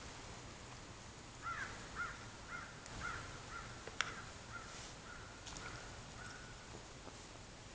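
A crow cawing in a quick series of about a dozen calls, roughly two a second, growing fainter. A single sharp click comes about four seconds in.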